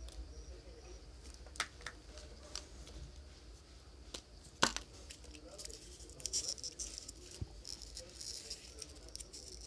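Hands handling small phone-repair parts on a bench: scattered light clicks and taps, one sharper knock about halfway through, then a few seconds of crinkly rustling near the end.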